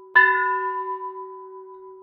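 A bell struck once just after the start, ringing with a clear pitched tone and several overtones that slowly fade away.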